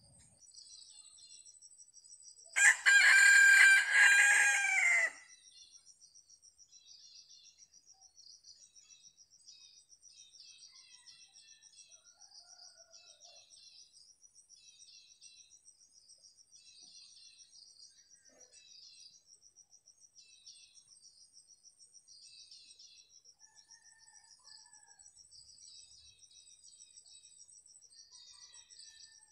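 A red junglefowl rooster crows once, loud, about two and a half seconds in, the crow lasting about two and a half seconds. Under it and afterwards, a faint steady insect trill with scattered small high chirps.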